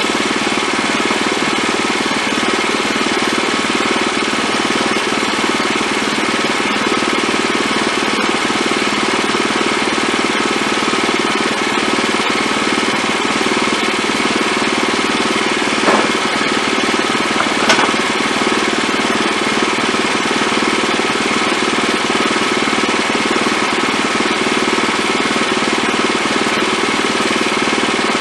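Wood-Mizer LX25 portable band sawmill running steadily at a constant pitch, its engine and band blade working through a pass to edge a 1-inch board. Two brief clicks come through about two-thirds of the way in.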